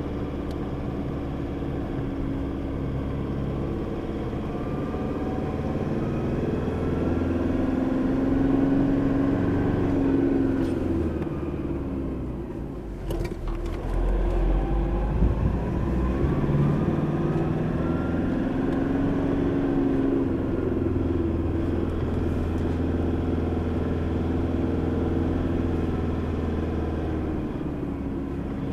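Four-wheel-drive vehicle's engine running while driving, its note rising and falling with the revs. About halfway through the engine eases off briefly under a low rumble, then pulls again.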